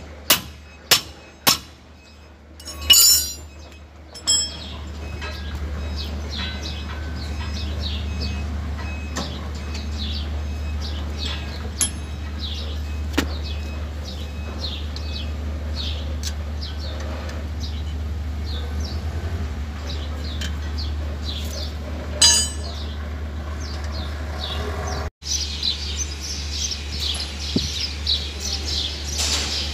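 A handful of sharp metal-on-metal hammer strikes in the first few seconds, and one more later on. Birds chirp over a steady low hum throughout.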